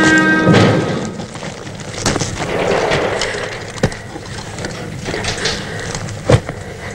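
A music chord ends about half a second in, giving way to the knocking and crumbling of coal and rock being worked in a mine tunnel. There are two sharp strikes, about four seconds in and again near the end.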